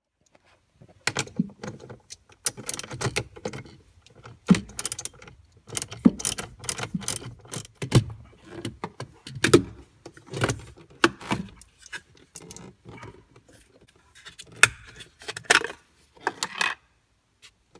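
Hands handling plastic and metal battery hardware on a Mercedes Sprinter: the battery's quick-disconnect being unplugged, and the fuse distribution box being worked loose and lifted off the battery terminal. This gives an irregular run of clicks, knocks and light rattles.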